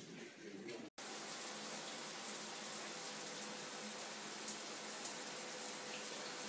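Water running steadily from a tap into a sink, cutting in abruptly about a second in.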